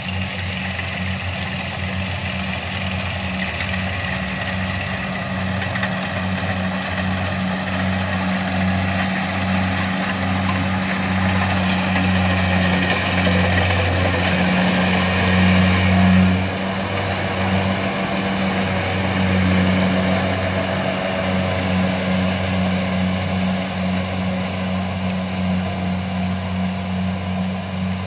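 Kubota DC-70 combine harvester's diesel engine running steadily under load while harvesting rice, with the rattling rush of the cutting and threshing mechanism over the deep engine hum. It swells to its loudest just past halfway, then drops suddenly.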